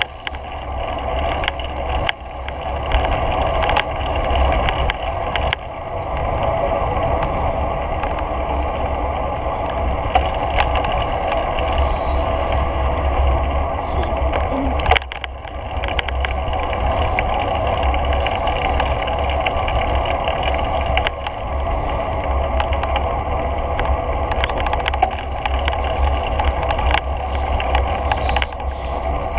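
Wind buffeting the microphone of a moving action camera, with a steady hum of travel along a paved path and a few brief dips.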